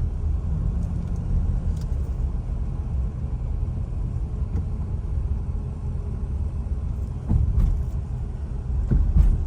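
Steady low rumble of a car driving, heard from inside the cabin: road and tyre noise with the engine underneath, swelling louder twice near the end.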